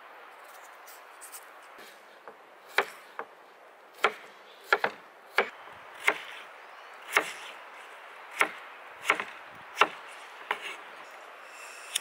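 Knife chopping a peeled potato into cubes on a wooden cutting board: a dozen or so sharp knocks of the blade meeting the board, irregular and roughly one a second, starting about three seconds in.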